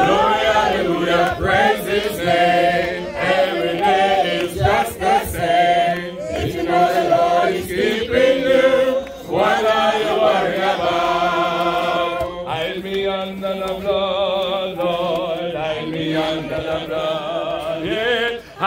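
A crowd singing a gospel chorus together, voices carrying on without a break.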